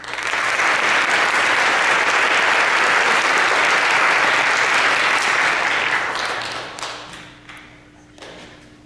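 Audience applauding, loud for about six seconds, then dying away to a few last scattered claps.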